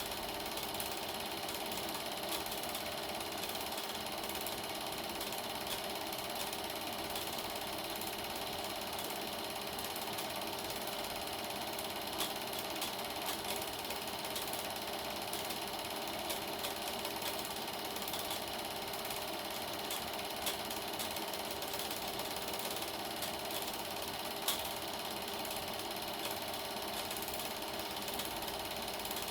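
Super 8 film projector running steadily, its film-transport mechanism making a continuous even clatter, with one sharper click late on.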